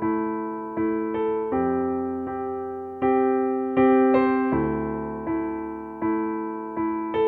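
Background music: soft electric piano playing slow, sustained chords, each struck and left to fade before the next, about one a second.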